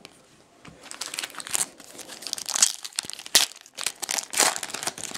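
Card pack wrapper crinkling and tearing as it is opened by hand, a run of sharp crackles.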